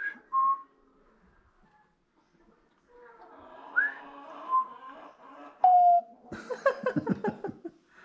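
African grey parrot whistling: a rising whistle followed by a short lower note, the pair given twice about four seconds apart, then a longer held whistle and a stretch of rapid chattering near the end.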